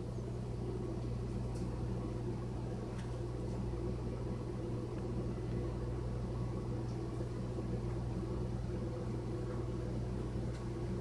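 Steady low mechanical hum of room background noise, with a few faint ticks.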